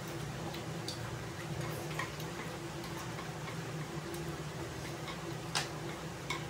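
Eating and drinking at a table: irregular small clicks and ticks from chewing, chopsticks and a glass jar, over a steady low hum.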